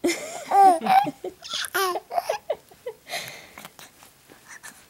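Young baby cooing and babbling in a run of short, high-pitched vocal sounds that bend up and down in pitch. A breathy little chuckle comes about three seconds in.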